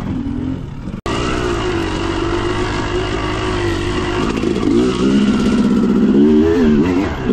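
Dirt bike engine running while being ridden down a trail. There is a brief dropout about a second in. From about halfway on, the engine revs up and down repeatedly as the throttle is worked.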